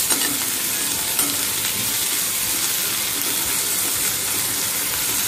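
Chopped tomato, peas and peanuts sizzling steadily in hot oil in a kadhai, stirred with a metal spoon that clicks faintly against the pan now and then.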